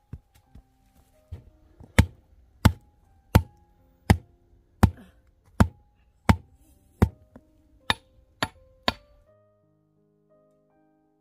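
Stone knocking on stone as rocks are set onto a stone-and-earth pile: about eleven sharp knocks, evenly spaced less than a second apart, stopping a little after halfway through. Soft piano music plays underneath.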